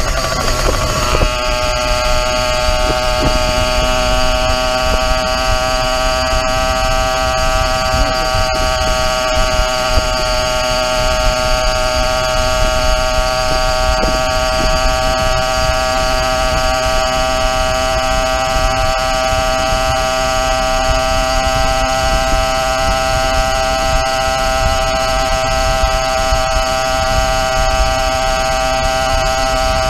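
YD100 two-stroke motorized bicycle engine running at a steady cruising speed, a constant high-pitched note whose pitch dips slightly about a second in and then holds level. Wind rumble on the microphone underneath.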